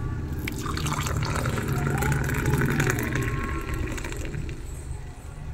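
Hot coffee being poured and splashed into small clay kulhad cups, working up a froth. The pouring is loudest about halfway through.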